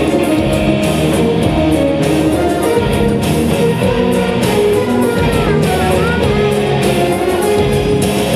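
Live rock music from a steampunk band: electric guitars and bass, with a goblet drum played by hand and a wavering melody line partway through.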